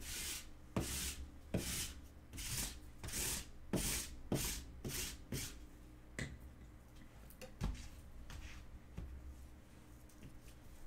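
Trading cards being handled on a table: about eight quick sliding swishes, each starting with a light tap, then a few scattered soft clicks.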